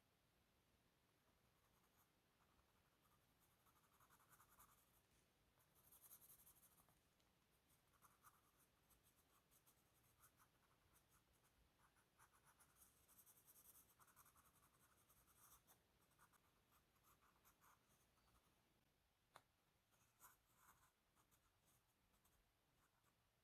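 Faint scratching of a drawing tool on paper, in irregular strokes, with one sharp click about 19 seconds in.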